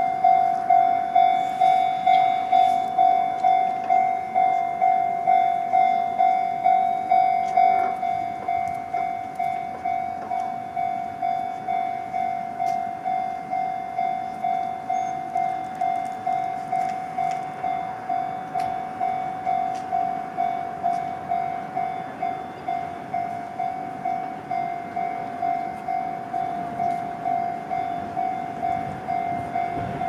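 Japanese railway level-crossing warning bell ringing, an even electronic 'kan-kan' tone at about three strikes every two seconds. It drops to a lower volume about eight seconds in and keeps ringing.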